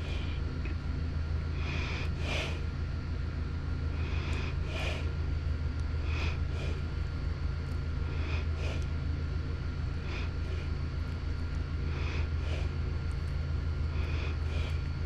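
Grease squishing and scraping as a tapered front wheel bearing is packed by hand. It comes as short soft strokes about every two seconds, often in pairs, over a steady low hum.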